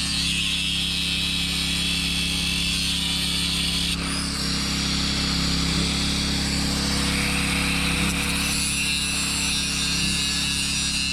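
Angle grinder running steadily, its disc grinding into the steel of a trailer kingpin lock. The sound changes suddenly about four seconds in.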